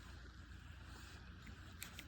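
Faint, steady low rumble of wind on the microphone, with one small click near the end.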